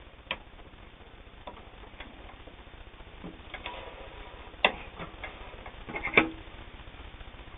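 A few separate clicks and knocks with some rustling, from handling at the sewing machine; the loudest knock comes near the end. The machine is not running.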